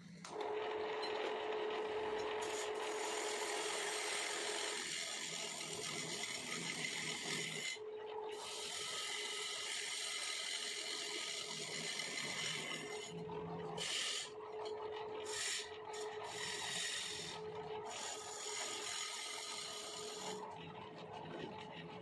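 Wood lathe turning a wooden bangle while a hand tool scrapes and cuts the spinning wood, over the steady hum of the machine. The scraping runs in long passes, with a short break about a third of the way in and several brief breaks about two-thirds of the way in.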